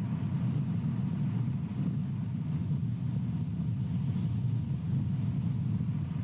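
Wind rumbling on an outdoor nest-camera microphone: a steady low rumble that rises and falls in strength.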